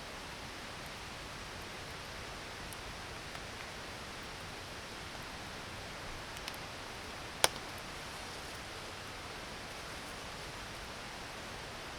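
Campfire burning against a steady rushing hiss, with a few faint crackles and one sharp, loud wood pop about seven seconds in.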